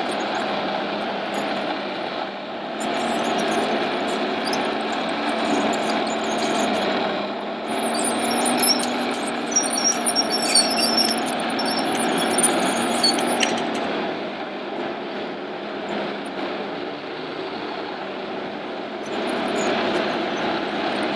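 Steady mechanical din of RC model machines running, with a cluster of high-pitched squeaks for several seconds midway through.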